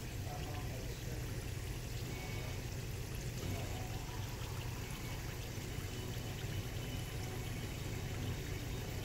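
Olive oil bubbling steadily around potatoes, garlic and rosemary as they confit in a stovetop pan: a continuous fizzing with fine crackles. A low steady hum sits underneath.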